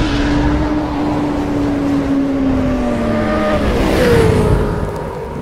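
Sport bike engine sound effect: a steady engine note drifting slowly lower, then a rush of noise about four seconds in as the note jumps up and settles higher.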